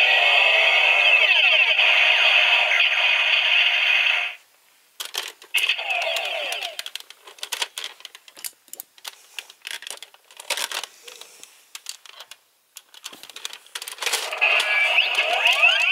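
Electronic sound effects from a Gokaiger pirate-ship gun toy's small speaker, cutting off about four seconds in and returning briefly twice. Between them come sharp plastic clicks and clacks as the toy is handled.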